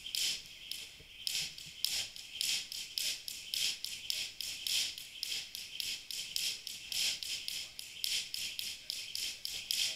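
Jump rope skipping: the rope slaps the gym floor in a fast, even run of light clicks, several a second, without a break.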